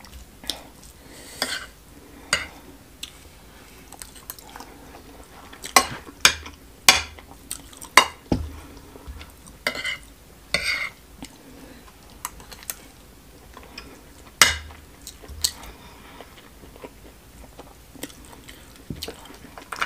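Close-up eating sounds: chewing and mouth smacks while eating smoked catfish stew with rice, mixed with a metal fork and spoon scraping and clinking against the plate. The sounds come as irregular sharp clicks and short smacks with quiet gaps between them.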